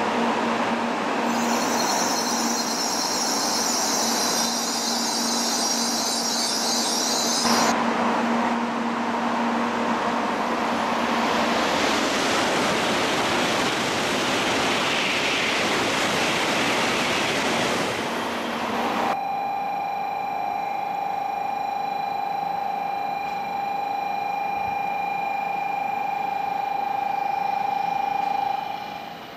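Shinkansen bullet train passing through the station at high speed: a loud, continuous rush of air and wheel-on-rail noise. About two-thirds of the way in it gives way abruptly to a quieter background with a steady high-pitched tone.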